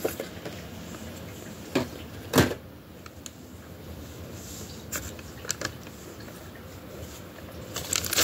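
Handling noises: a paper receipt and the phone being moved close to the microphone, with two sharp knocks about two seconds in, the second louder, and a few faint ticks later.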